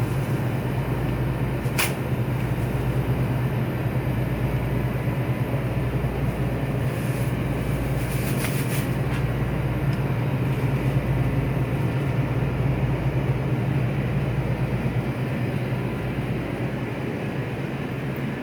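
Steady low machine hum with a constant rushing noise, and a few faint clicks.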